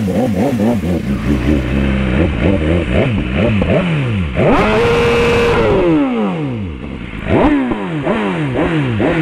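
BMW S1000RR inline-four engine revving under way, its pitch rising and falling over and over as the throttle is worked. About halfway it climbs, holds for about a second and then falls away, and it rises sharply again near the end.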